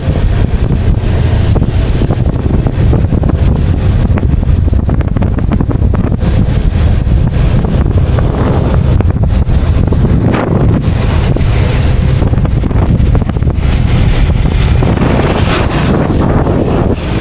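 Loud, steady wind rush buffeting the microphone of a moving motorbike, with the hiss of tyres on a rain-wet road mixed in.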